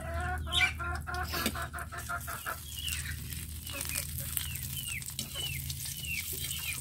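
Chickens clucking: a fast run of clucks for the first couple of seconds, then a string of short, high, falling peeps about twice a second.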